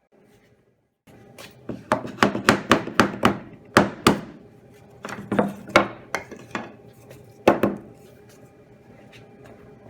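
A quick run of sharp wooden and metal clacks and knocks, about a dozen over six seconds, some in fast pairs, as a bandsaw is adjusted and set up for a cut, over a faint steady hum.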